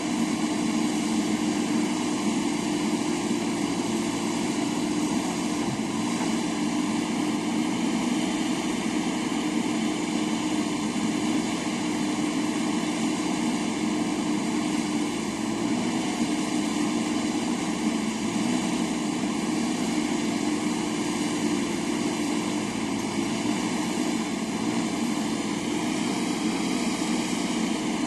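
JCB backhoe loader's diesel engine running steadily, with an even, unchanging note.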